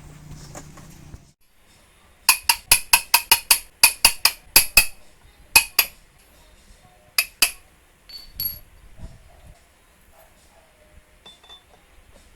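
Sharp metal-on-metal taps with a bright ring, about five a second for a couple of seconds, then a few scattered ones. A low hum stops suddenly about a second in.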